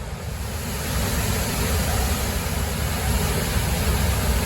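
Waterfall rushing with a steady noise of falling water, a little louder from about a second in.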